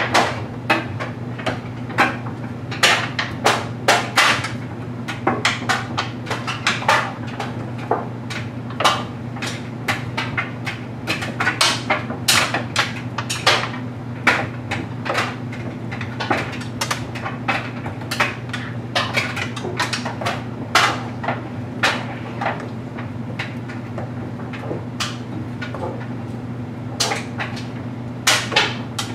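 LG Mega Capacity clothes dryer running with a steady hum while its drum tumbles a load of stuffed animals, which knock and clack irregularly against the drum and glass door, a few times each second.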